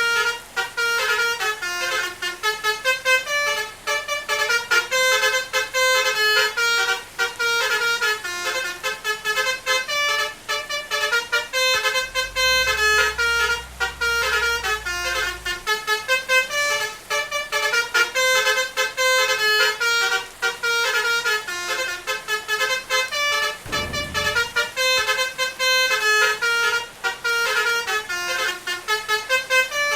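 Basuri 'telolet' multi-tone bus horn playing a continuous melody of quickly changing notes. A low rumble sits under it for a few seconds around the middle, and there is a brief low thump later.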